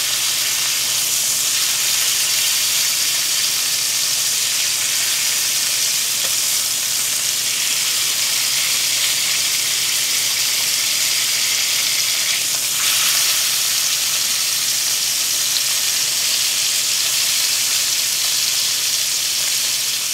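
Bacon-wrapped filet mignon searing in hot olive oil and butter in a cast iron skillet: a steady sizzle, briefly a little louder about two-thirds of the way through.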